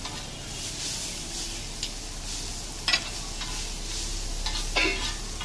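Egg chowmein noodles sizzling on a large flat griddle while a metal spatula stirs and scrapes them, with a few sharp clanks of the spatula on the pan, the loudest about three seconds in.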